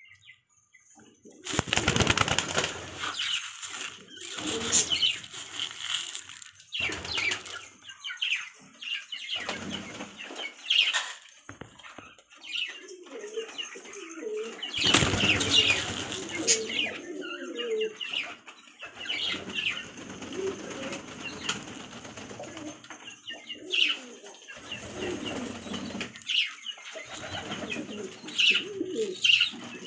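Domestic pigeons cooing and flapping their wings, with loud bursts of wing flapping about two seconds in and again about halfway through.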